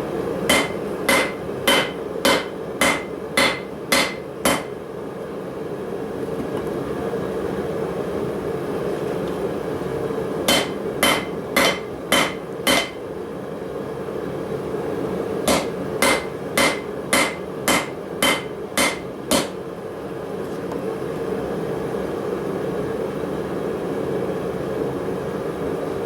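Hand hammer striking steel on an anvil in three runs of evenly paced blows, about two a second, each blow with a short metallic ring. A steady rushing noise runs underneath.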